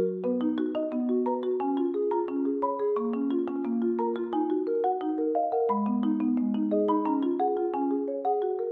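Background music: a quick melody of short struck notes, several a second, over a lower line of notes, in the manner of a mallet instrument such as a marimba.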